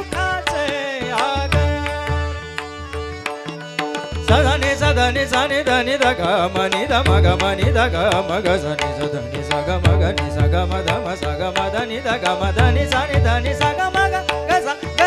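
Devotional abhang accompaniment: harmonium holding drones and playing the melody over tabla and pakhawaj rhythms. The drums drop out briefly around three seconds in, then come back strongly and play on busily.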